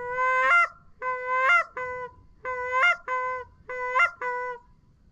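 A goose call blown to lure geese: seven loud, clear notes of steady pitch, each ending in a sharp upward crack, the first one long and drawn out and the rest shorter, coming in quick pairs.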